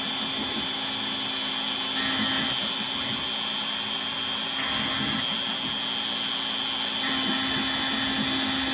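CNC router spindle running steadily while a V-bit engraves lettering into a brass plate, with a steady high whine over the motor noise.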